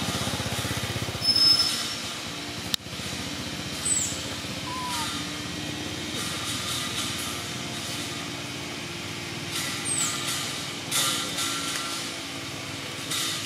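Outdoor ambience: a steady background drone with a few short, high, falling chirps scattered through it, and a sharp click just before the three-second mark.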